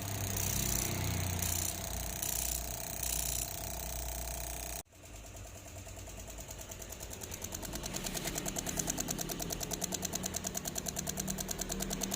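Fast, even mechanical knocking from a Yamaha YZ250 single-cylinder two-stroke, several knocks a second, growing louder after an abrupt cut about five seconds in; the strange noise that is taken as a sign of damage in the bike. Before the cut, a steady low mechanical hum.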